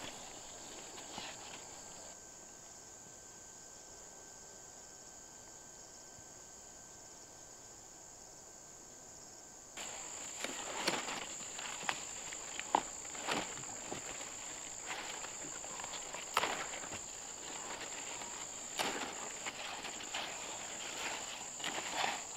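Steady high-pitched calling of insects. From about ten seconds in it is louder and joined by irregular rustling of squash leaves and sharp snicks of a long knife cutting through the vines.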